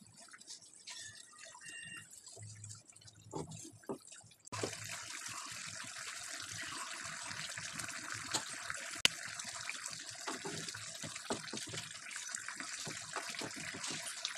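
Pabda fish curry bubbling in a pan. It is quiet at first with a few soft knocks, then about four seconds in a steady hissing simmer starts abruptly and carries on, with occasional light clicks.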